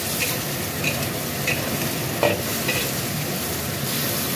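Cucumber, mushroom and fish-sausage slices sizzling in a wok as a metal spatula stirs and scrapes them, with a few short clinks of the spatula against the wok.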